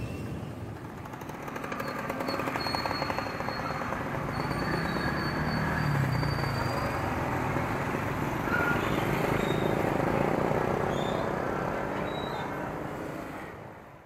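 Street ambience of passing motorbikes and general traffic, with a fast rattling small engine about two seconds in; the sound fades out near the end.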